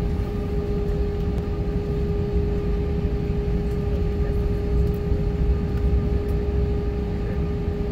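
Airbus A320 jet engines at low taxi power, heard inside the cabin: a steady hum with a constant tone over a low rumble as the airliner rolls slowly onto the runway.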